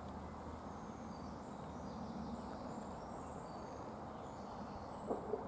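Faint high chirps and calls of small birds over a steady background hiss, with a couple of soft taps near the end.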